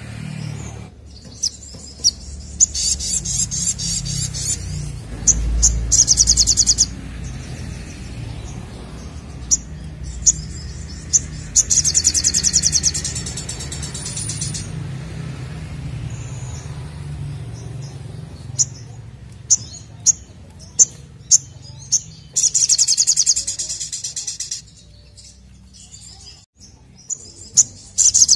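A caged sogok ontong sunbird singing loudly, in repeated bursts of rapid high-pitched trilling about two seconds long, with single sharp chips between the bursts.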